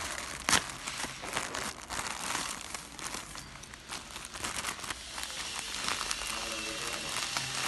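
Plastic poly mailer bag crinkling and rustling in irregular crackles as it is handled and pulled open by hand, with one sharp crackle about half a second in.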